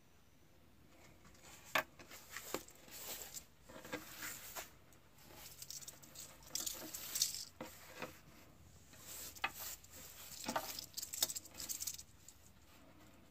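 Faint, irregular scraping and rustling with soft clicks: a dead rattlesnake's scaly body sliding and twitching against a hard stone basin. The snake is still moving by reflex some 40 minutes after it was killed.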